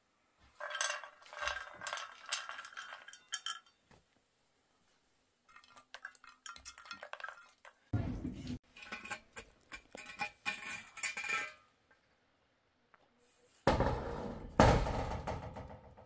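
Popped popcorn rattling and skittering as it is tipped from a frying pan onto a steel plate, with the pan and plate clinking against each other in clusters of small clicks. A heavier knock about halfway through, and a louder rustling thump near the end.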